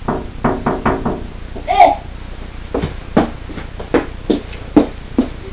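Knocking on a glass patio door: a quick cluster of ringing knocks in the first second, then a steady run of knocks about two and a half a second from about three seconds in.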